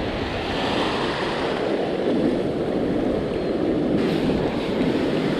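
Ocean surf breaking and washing up the beach as a steady rushing noise, with wind buffeting the microphone.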